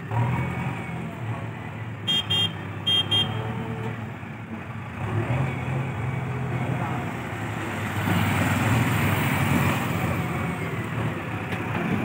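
JCB 3DX backhoe loader's diesel engine running steadily as it works, with four short high-pitched beeps in two pairs about two seconds in. A broader rush of vehicle noise builds over the last few seconds.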